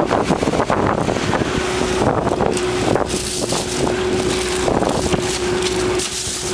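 Wind buffeting the microphone with a constant rushing noise. A steady hum comes in about a second and a half in and holds.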